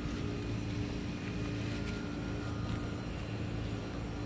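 A steady low machine hum, an engine or motor running without change.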